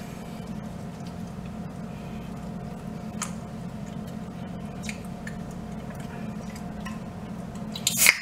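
A man chewing a sandwich, with faint wet mouth clicks over a steady low room hum. A few sharp, louder clicks come near the end.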